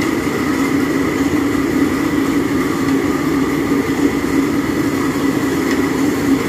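Steady roar of the stoves heating large kadhais of boiling milk for rabri, with a constant low hum and a thin high tone running through it.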